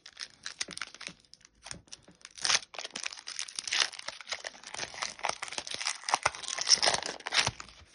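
Foil Pokémon booster pack wrapper being crinkled and torn open by hand, a busy crackling full of small sharp clicks that grows denser partway through.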